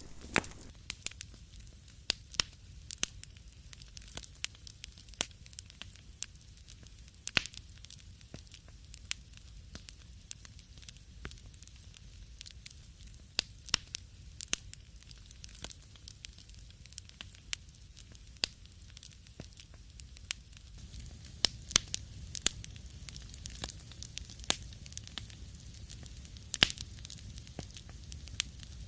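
Wood fire crackling in a fireplace: irregular sharp pops and snaps over a low, steady hiss.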